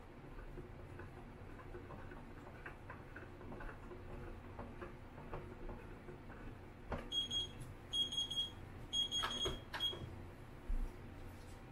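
Faint irregular clicking as the reel of a film developing tank is twisted by hand for agitation, then an electronic timer beeps in about four short bursts, marking the end of the development time.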